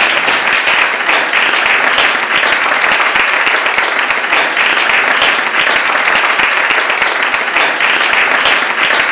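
Audience applauding: a dense, steady clapping that holds loud without letting up.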